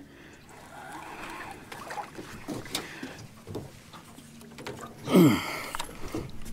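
A hooked catfish thrashing and splashing at the surface beside a boat while it is fought to the net, with a loud sudden burst about five seconds in.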